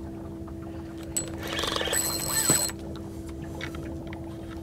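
Fishing reel whirring for about a second with a high whine, a click just before it, over a steady low hum.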